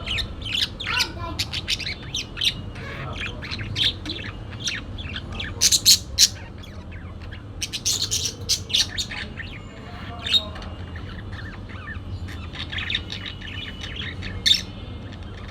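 Parakeets chirping and squawking in quick runs of short, sharp calls, with the loudest clusters about six and eight seconds in.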